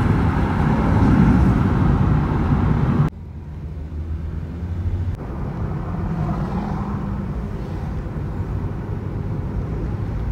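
Car driving: loud wind and road noise for about three seconds, then a sudden drop to a quieter, steady engine and tyre hum.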